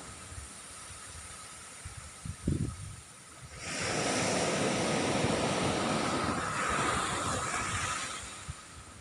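Sea waves on a beach: a wave washes in loudly about a third of the way through, holds for several seconds and fades near the end, with a few low thumps of wind on the microphone before it.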